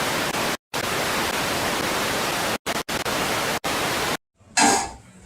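Steady, even static-like hiss that cuts out abruptly to dead silence several times, each gap followed by the hiss resuming at the same level.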